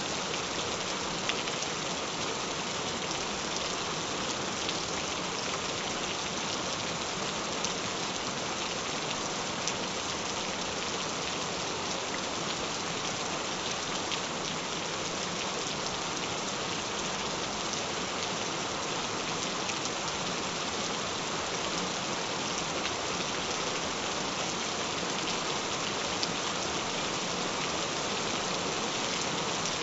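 Gentle rain falling steadily: an even hiss with scattered drop ticks.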